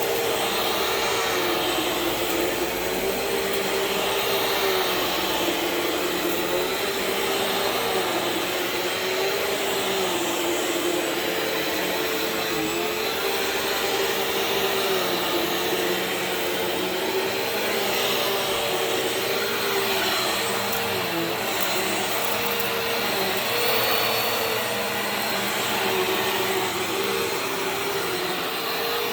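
Bissell CleanView Swivel Pet (2252) upright bagless vacuum running steadily on carpet; its motor hum holds a steady pitch but dips slightly now and then as the load changes.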